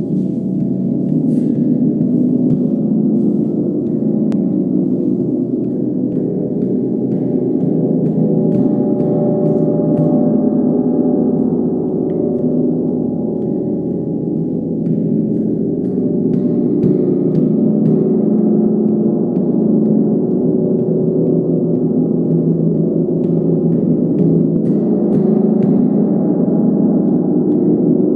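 40-inch Mother Tesla gong played continuously with a soft-headed mallet, a dense, sustained wash of many overlapping low tones held at a steady level, with faint taps where the mallet meets the metal.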